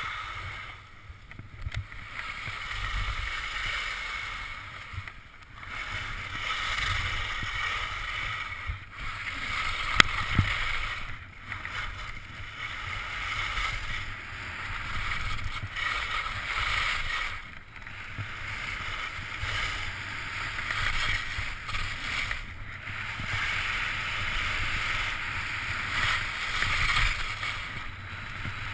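Skis sliding and scraping over firm spring snow, a hiss that swells and fades every few seconds as the skier turns, with wind rumbling on the microphone underneath. A single sharp click sounds about ten seconds in.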